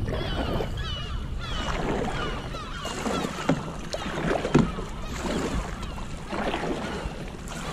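A kayak paddle stroking through calm water, its blades dipping in and splashing at an uneven pace, with water dripping off between strokes.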